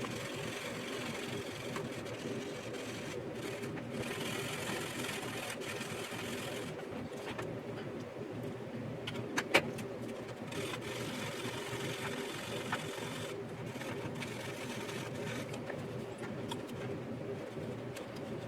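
Steady mechanical hum from a small machine, with faint intermittent scratching of wet sanding on a plastic model kit and one sharp click about halfway through.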